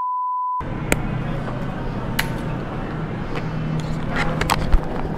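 A steady, pure test-tone beep lasting under a second, the bars-and-tone signal dropped in as an edit. It is followed by background noise with a low steady hum and a few scattered clicks.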